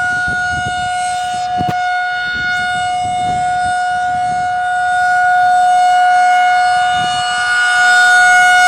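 Federal Signal 2001-SRN outdoor warning siren sounding its steady single tone during a test, heard loud and close. The pitch holds level while the volume slowly swells and eases as the rotating horn sweeps around.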